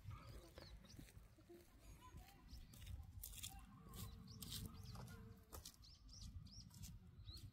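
Faint outdoor quiet with small birds chirping now and then, short quick calls over a low steady rumble.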